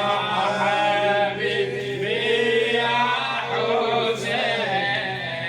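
Group of voices chanting a Shia latmiyya refrain in unison, unaccompanied.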